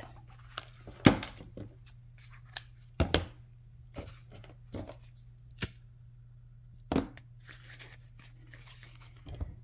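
Hands handling a grosgrain ribbon bow, thread and scissors on a cutting mat: scattered rustles and about five sharp clicks and taps a second or two apart, over a steady low hum.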